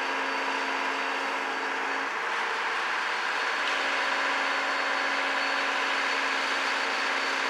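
Excavator's diesel engine running steadily, with a steady hum that breaks off for a second or so in the middle while the boom and bucket are moved; no crashes of falling debris.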